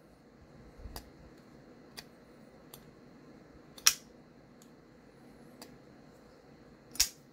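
Kubey Drake folding knife, a ball-bearing pivot with a liner lock, being opened by thumb through the blade hole. The blade snaps open and locks with a sharp click about four seconds in and again near the end, with lighter clicks between as the blade is handled and closed.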